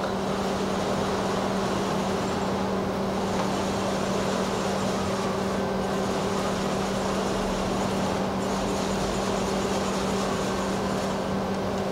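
DMG Mori NLX-2500/500 CNC turning center under power while its tailstock is jogged along the bed. There is a steady, even hum with a low constant tone and a fainter higher one, and no distinct impacts.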